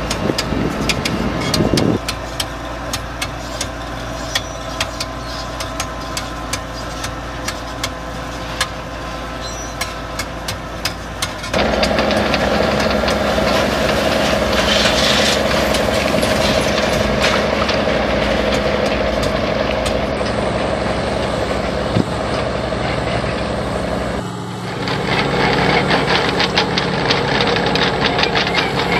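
Diesel engines of heavy tracked drainage tile-laying machines running steadily, the sound changing abruptly about two seconds in, near the middle and again a few seconds before the end.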